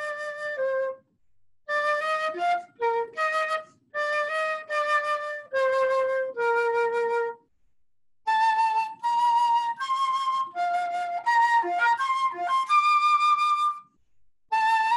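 Solo flute playing a slow Easter hymn melody note by note, in phrases broken by short breath pauses.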